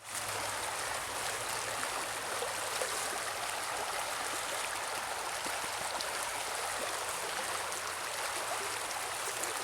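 A shallow mountain river running steadily over rocks, a continuous rushing and gurgling of water.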